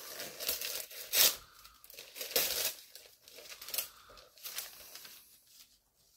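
Gift wrapping paper being ripped and crumpled by hand in a series of quick tears, the loudest about a second in and again a second or so later, fading to lighter rustling near the end.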